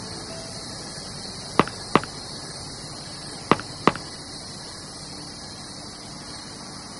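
Computer mouse double-clicked twice, about two seconds apart, over a steady hiss.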